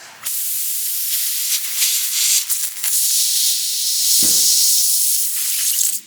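Compressed air hissing out of a puncture in a tubeless car tire, with the hole left open for the tire plug. The hiss is loud and steady, has a brief knock about four seconds in, and cuts off suddenly near the end.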